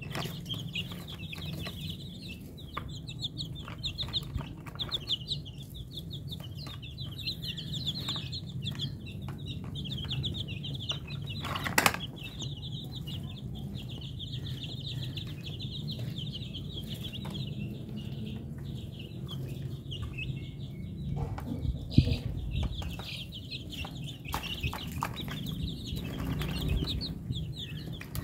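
Young chicks peeping continuously, many short high calls overlapping one another. A sharp knock stands out about twelve seconds in and another about twenty-two seconds in.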